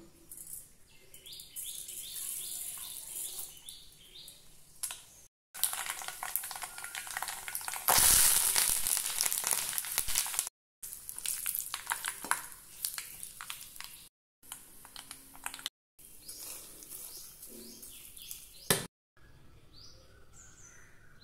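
Mustard seeds crackling and curry leaves sizzling in hot oil in a kadai during a tempering, heard in several short cuts and loudest about eight seconds in. A single sharp knock comes near the end.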